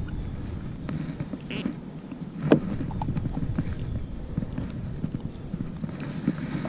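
A hooked redfish splashing and knocking against the side of a plastic kayak while held by a lip-gripper, in irregular knocks and clatter with one sharp knock about two and a half seconds in, over a steady low rumble.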